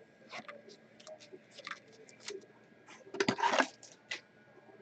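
Trading cards and their packaging being handled on a table: scattered light clicks and taps, with a brief louder rustle or scrape about three seconds in.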